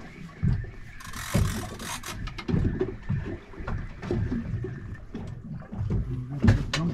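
Knocks and bumps on a fishing boat, with a brief hissing rush about a second in.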